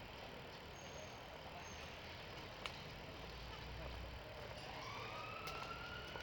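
Faint steady hum of city traffic, with a siren's wail rising and levelling off in the last second or so, and a single small click about midway.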